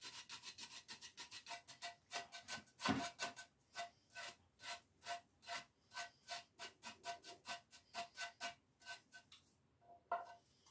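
Brush bristles swished and flicked over a lamp's waxed surface, working dusting powder into the crevices: quick rubbing strokes about three or four a second, pausing briefly near the end.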